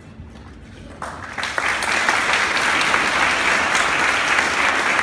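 Audience applause breaking out about a second in, swelling quickly to full, steady clapping.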